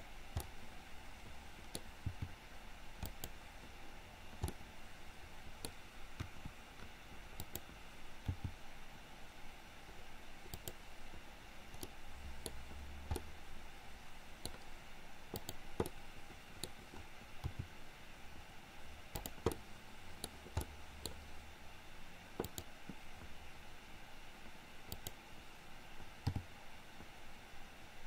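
Computer mouse clicks and occasional keyboard presses, short and irregular, over a faint steady hiss.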